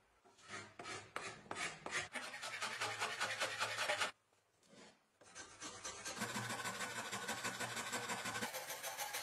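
A hand file rasping a wooden knife handle held in a vise, in quick repeated scraping strokes. The strokes stop for about a second near the middle, then start again.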